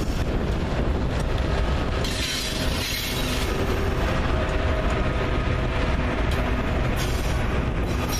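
Two trailing Union Pacific GE diesel locomotives at the rear of a freight train rolling past close by. The engines run under a steady rumble of wheels on the rails, with some wheel squeal and clatter.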